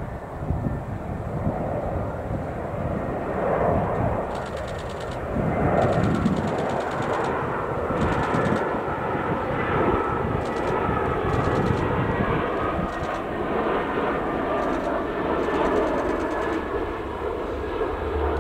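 Turbofan engines of a Vueling Airbus A320-family airliner on final approach: a steady jet rumble with a thin whine on top, growing louder over the first few seconds as the aircraft comes in low towards touchdown.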